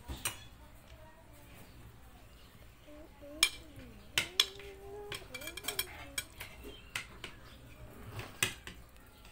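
A metal fork and spoon clinking and scraping against a bowl and plate while noodles are dished out, in scattered sharp clicks. Faint voices are heard in the background through the middle.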